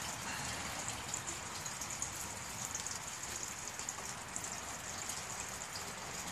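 Steady trickling and splashing of water in a koi pond, with a fine patter of small drops.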